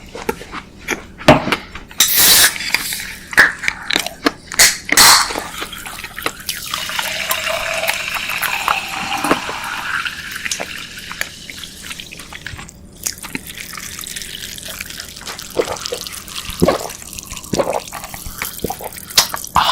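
Close-miked wet chewing and mouth sounds, with many sharp clicks and smacks.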